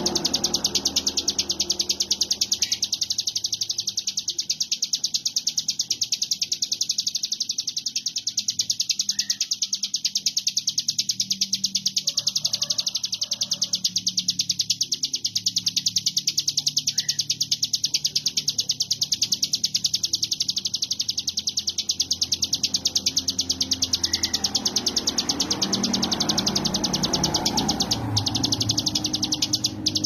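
A prinia, the ciblek gunung, singing a non-stop, very fast high buzzing trill: the 'konslet' (short-circuit) style of song that bird keepers prize in a bird in full voice (gacor).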